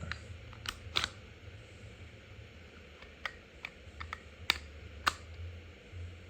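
Makarov pistol's steel slide being fitted back onto the frame, several sharp metal clicks and clacks at uneven intervals, the loudest about a second in and twice near the five-second mark.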